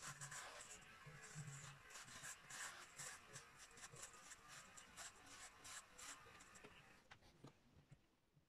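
Electric hair clipper cutting hair at the back of the head: many quick, sharp strokes over an on-and-off low motor hum, fading out about seven seconds in.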